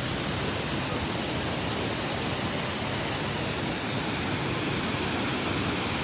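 Waterfall pouring over rocks: a steady, unbroken rush of falling water close by.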